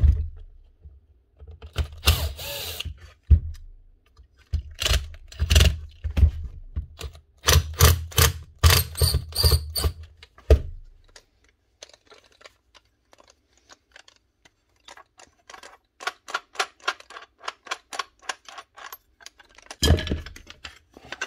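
Cordless drill-driver running in short bursts to back out the gear-head screws of a Makita cordless angle grinder, with knocks of the tool against the bench. After that comes a run of faint light clicks, and a last short burst near the end.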